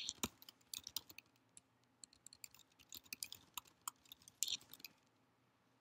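Faint typing on a computer keyboard: uneven runs of key clicks with short pauses, quietest in the last second.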